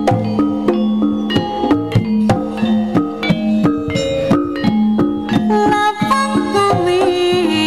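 Javanese jaranan gamelan music: quick, repeated struck notes of gongs and metallophones with drums, over a held low note. About five and a half seconds in, a wavering melody line joins above the percussion.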